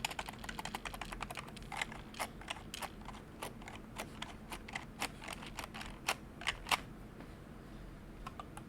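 Typing on a Happy Hacking Keyboard KB#02 with rubber-dome keys. A quick run of keystrokes in the first second slows to single, spaced-out key presses, with a few louder strikes around the seventh second and two faint taps near the end.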